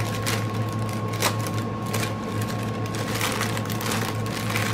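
A small plastic bag of diamond-painting resin drills being handled and zipped shut: scattered light clicks at irregular moments. Under it runs a steady low hum with a faint high tone.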